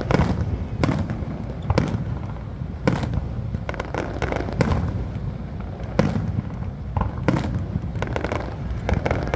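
Aerial fireworks bursting: a sharp bang roughly every second, about a dozen in all, over a continuous low rumble of shells going off.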